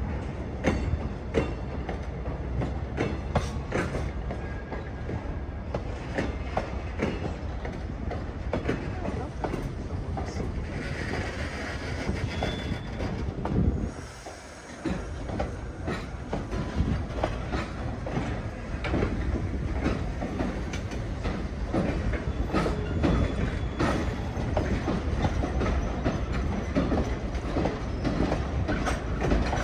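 Railcar wheels clacking and rattling over rail joints as a train rolls slowly, over a low rumble, with a few brief, faint wheel squeals.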